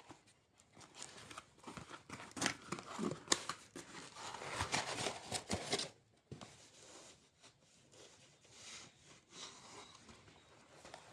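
Parcel packaging being torn open and crinkled by hand, busy and crackly for the first six seconds, then quieter rustling and handling.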